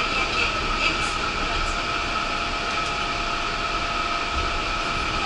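Yurikamome rubber-tyred automated guideway train running on its concrete guideway, heard from inside the front of the car: a steady running noise with steady high whining tones over it.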